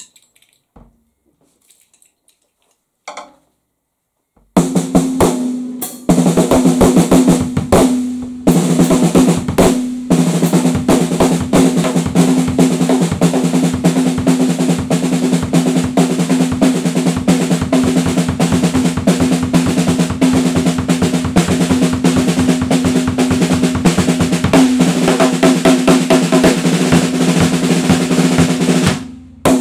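Acoustic drum kit played fast and hard, with snare and bass drum strokes and rolls. After a few faint knocks, the playing starts about four seconds in, breaks off twice briefly, then runs on without a pause until just before the end.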